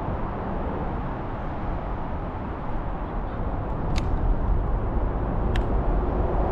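Steady low rumble of road traffic on the bridge overhead, with two sharp clicks about four and five and a half seconds in.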